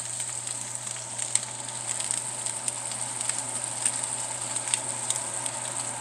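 Sous-vide ribeye sizzling and popping in pan-hot bacon grease as its fat edge is seared, a steady hiss with many small crackles. Under it runs the steady hum of a kitchen exhaust fan.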